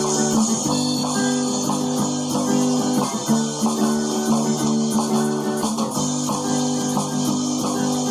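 Guitar-band music: strummed guitar chords held and changed every second or so, in an instrumental passage of the song with no singing.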